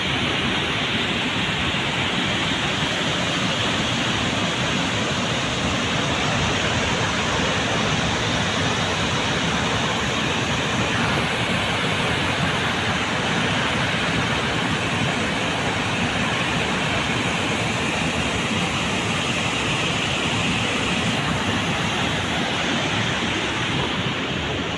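Water rushing steadily through a dam's open spillway gates as the reservoir releases floodwater. It makes one constant noise with no breaks.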